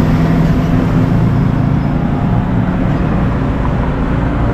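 Road traffic noise, with a steady, loud low engine hum from passing or nearby motor vehicles.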